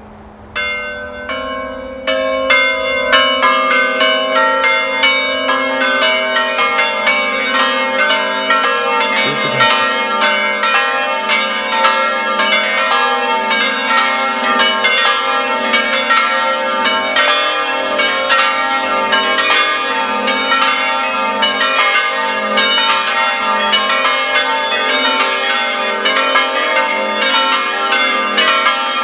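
Church bells swinging in a semi-plenum peal. Bells join one after another in the first two seconds, then ring together in a continuous, overlapping peal. The two smallest bells are left out because of a technical fault.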